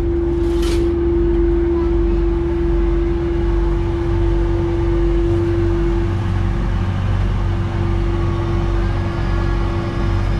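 Ferry's engine running steadily: a low drone with a constant mid-pitched whine over it, which dips briefly past the middle. A short hiss under a second in.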